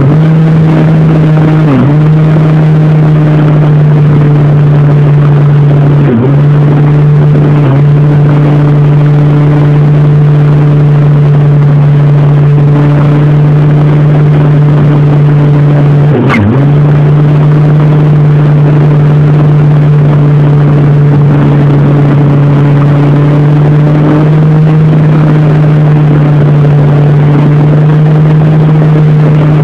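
Brushless electric motor and propeller of an RC model Cessna 182 in flight, heard from a phone taped to the plane: a loud, steady drone. The pitch dips briefly a few times, most sharply about 16 seconds in.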